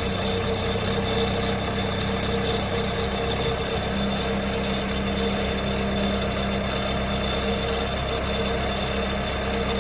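Diesel engine of a 2001 JCB 214 Series 3 loader backhoe running steadily at a constant speed.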